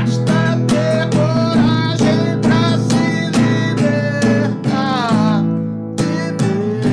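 A man singing a song while strumming a nylon-string classical guitar in a steady rhythm. The voice breaks off about five seconds in while the guitar carries on, then comes back near the end.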